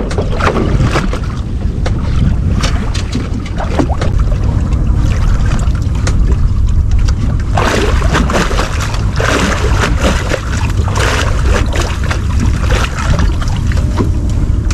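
Wind buffeting the microphone on a small open fishing boat, a steady low rumble, with scattered clicks and short rustling noises from handling the fishing line and gear.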